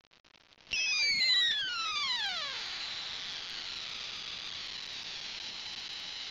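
High-voltage spark arc from an old car ignition coil driven by an NE555 timer and bipolar transistor, sounding as a high-pitched whine. It starts about three-quarters of a second in, sweeps downward in pitch over about two seconds, then holds a steady high whine.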